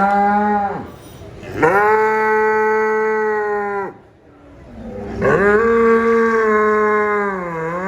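Cow mooing: the tail of one moo, then two long, steady moos about a second apart, each rising in pitch as it starts.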